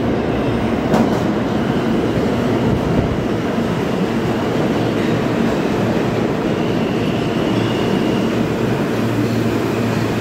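Stainless-steel New York City subway train running alongside the platform: a steady loud rumble of steel wheels on rail. A faint high squeal from the wheels joins about six seconds in.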